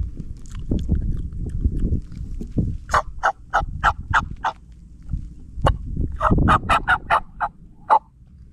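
Diaphragm mouth turkey call blown through cupped hands, imitating a wild turkey: a series of about six yelps, then after a pause a quicker run of notes. Under the calls runs a low, uneven rumble.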